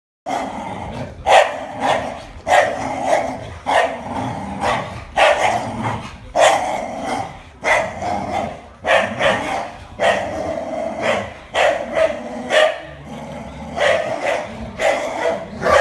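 Dogs barking in play during a tug of war, a sharp bark about once a second, with growling between the barks.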